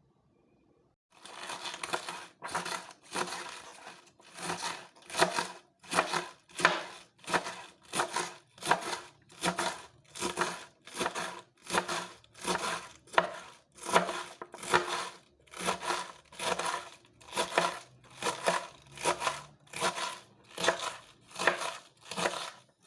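Vegetables being cut by hand for a salad, in evenly spaced strokes about three every two seconds, starting about a second in.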